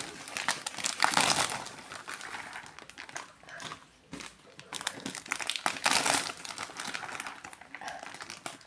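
Plastic snack packets crinkling and rustling as they are handled, in irregular bursts, loudest about a second in and again around six seconds in.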